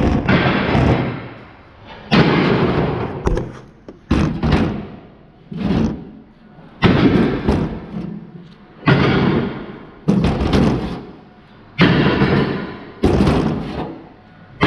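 Heavy pieces of scrap metal taking repeated hard impacts, about one every one to two seconds, each ringing out and dying away before the next.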